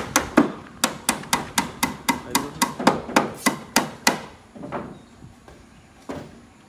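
A hammer striking nails into timber slab formwork, in a quick steady run of about five blows a second that stops about four seconds in, then a couple of single knocks.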